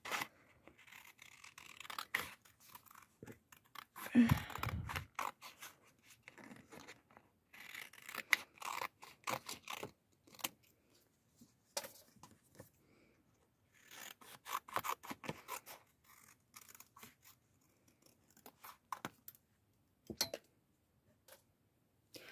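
Scissors cutting a printed photo, in short stop-start bursts of snipping and paper rustling, with a louder bump about four seconds in.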